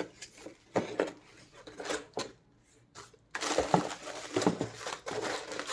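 Packaging and speaker wiring being handled: light clicks and knocks, a short pause, then steady rustling from a little past halfway.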